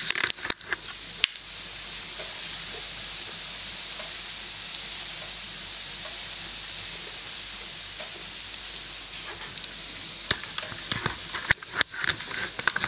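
King oyster mushrooms frying in oil in a pan, a steady sizzling hiss. Sharp knocks come in the first second and again in a run near the end.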